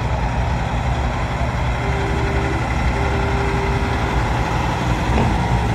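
Heavy diesel semi-truck engines rumbling steadily as trucks roll by in a slow convoy. A distant horn sounds twice, briefly, about two and three seconds in.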